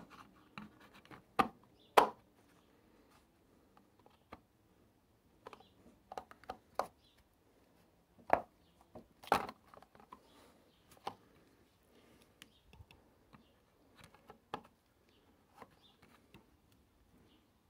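Irregular light clicks and knocks at uneven intervals, with a few sharper knocks among them.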